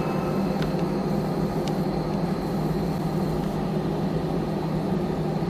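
Jet airliner's engines and rolling noise heard inside the passenger cabin as the plane moves along the ground: a steady hum with an even rushing noise.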